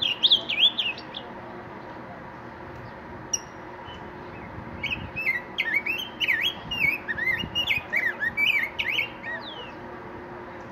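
Caged grosbeak singing: a short warbled phrase at the start, then, from about five seconds in, a longer run of rich, quickly changing whistled notes that stops at about nine and a half seconds.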